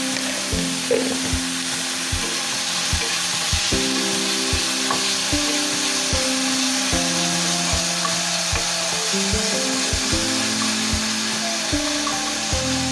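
Chopped onion, tomato and yellow capsicum frying in oil in a nonstick pan, a steady sizzle, stirred now and then with a wooden spatula. Background music with a steady beat plays over it.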